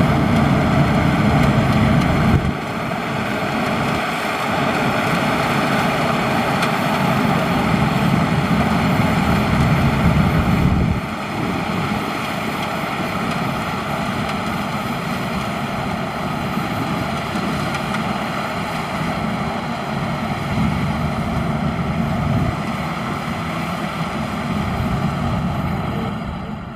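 Maxxi Bimo Xtreme combine harvester running steadily while harvesting rice, its engine and machinery making a constant heavy drone. The level drops suddenly about two and a half seconds in and again about eleven seconds in.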